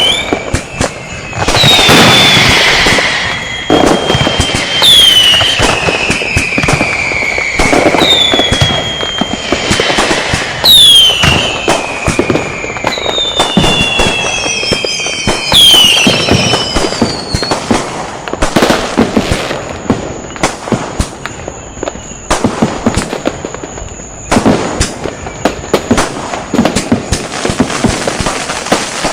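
Firecrackers and whistling fireworks going off: several shrill whistles glide down in pitch among repeated bangs over the first half, then a quick run of sharp cracks and pops follows.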